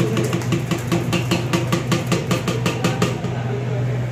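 Rapid even knocking, about seven knocks a second for some three seconds, then stopping: a plastic mixer-grinder jar being shaken against the rim of a steel pot to empty out thick chilli paste. A steady low hum runs underneath.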